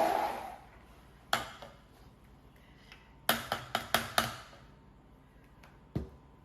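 Kitchen utensil knocking against a cooking pot: one sharp clink, then a quick run of about six taps and clinks a little past three seconds in, and a single duller knock near the end. A loud steady hum, like a small kitchen motor, dies away as it begins.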